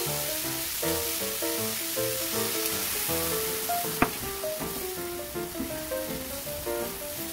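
Potato wedges and beef sizzling as they fry in a pan, under light plucked background music. A sharp click comes about four seconds in, after which the pan is full of bubbling braising liquid.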